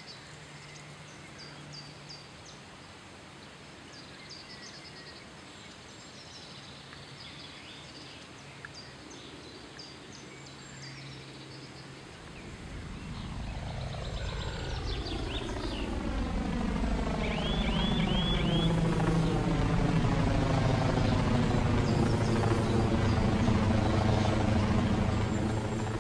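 Birds chirping over quiet outdoor ambience. About halfway through, the drone of an approaching engine grows steadily louder, its tone sweeping as it nears, then stops abruptly at the end.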